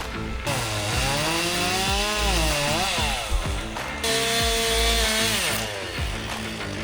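Chainsaw revving, its pitch rising and falling, then holding steady for about a second and a half. Background music with a steady beat plays underneath.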